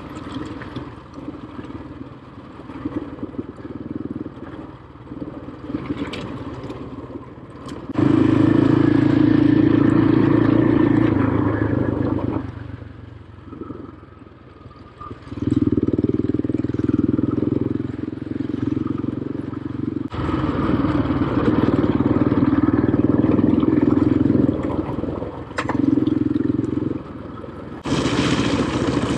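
Quad bike engine pulling hard in long bursts of throttle and dropping back between them, with a few sharp knocks from the trail.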